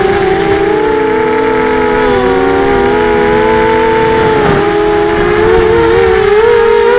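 Electric motors and propellers of an FPV quadcopter whining in flight. Several close pitches shift up and down as the throttle changes, over a low rush of wind on the onboard camera.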